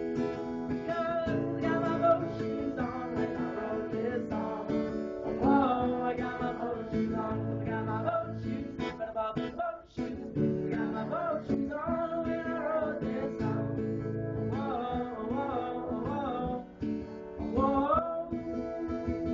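Sing-along song: strummed acoustic guitar under a melody line that slides and wavers between notes.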